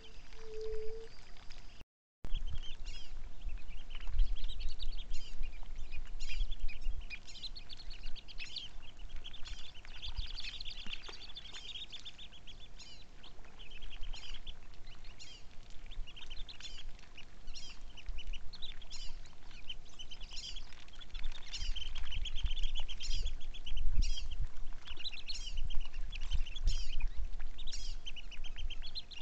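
Ducks calling, a steady run of rapid high chirping calls in clusters, over low wind rumble on the microphone. The sound drops out briefly about two seconds in.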